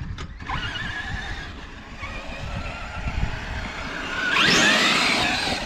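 A small vehicle's engine running while being driven over dirt, then revving up with a rising whine about four seconds in, the loudest part.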